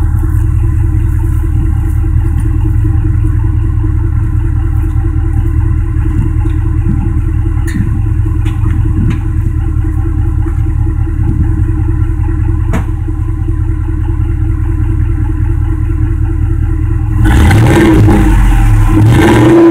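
Ford F-250 pickup's exhaust heard right at the tailpipe with the engine idling: a steady, loud low rumble. About seventeen seconds in, the engine is revved and the exhaust gets suddenly louder.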